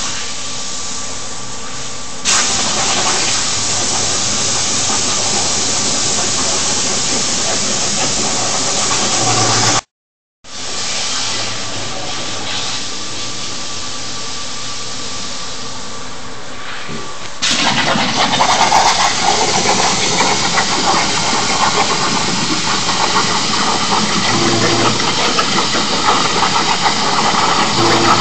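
CNC plasma cutter running: a loud, steady hiss that steps up about two seconds in, drops out for half a second about ten seconds in, and becomes louder and more crackling near the end.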